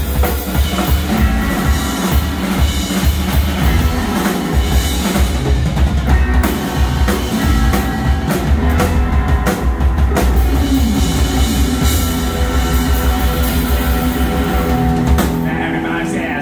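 Live band playing: electric guitar, upright double bass and drum kit, with a steady drum beat and a strong bass line.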